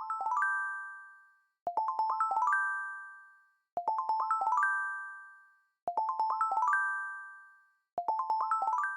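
A chime jingle: a quick rising run of bell-like notes climbing to a held top note that rings and fades. It repeats five times, about every two seconds.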